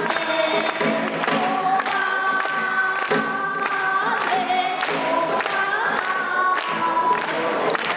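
A group of children singing a pansori-style Korean folk song in unison, holding and bending long notes, over a drum beat of about two strokes a second.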